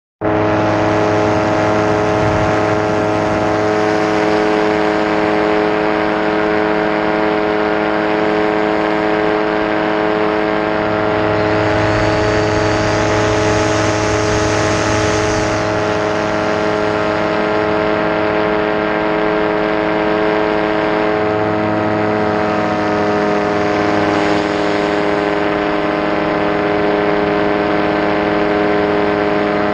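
Nirvana Instinct RC plane's motor and propeller running at a nearly steady pitch, heard from the camera on board, with wind noise; the pitch shifts slightly now and then.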